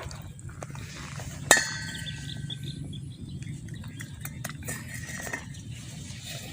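A single sharp metallic clink about one and a half seconds in that rings briefly, over a steady low hum.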